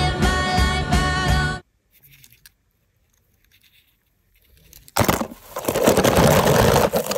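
Film soundtrack music that cuts off abruptly about a second and a half in. After a near-silent stretch, loud scratchy crinkling and scraping starts near the end, the sound of die-cast toy cars being handled in a plastic tub.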